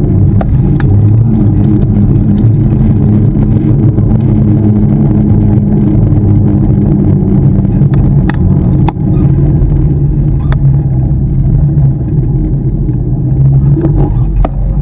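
Steady low rumble of wind and road noise on a handlebar-mounted GoPro Hero 2 as the bicycle rides along pavement, with a few brief clicks and rattles from the bike and camera mount.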